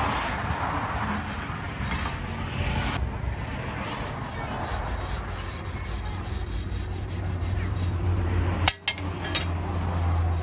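Rapid rubbing strokes against metal, the kind made when rust is scrubbed or filed off steel, with a low steady hum in the second half and a single sharp click about nine seconds in.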